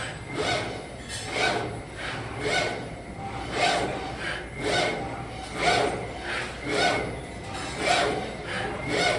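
All-electric servo-driven CNC mini press brake cycling through quick bending strokes. Each stroke is a short rushing mechanical sound with a faint high whine, repeating evenly about once a second.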